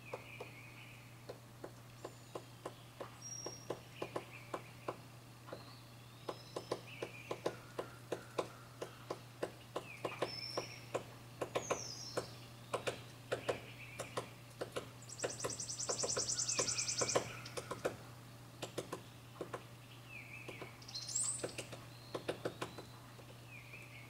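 Hairy woodpecker pecking at wooden trim, a run of sharp irregular taps about one or two a second, as it digs into a carpenter bee tunnel for the larvae. Short bird chirps come and go behind it, with a brief high buzzing trill about two-thirds through.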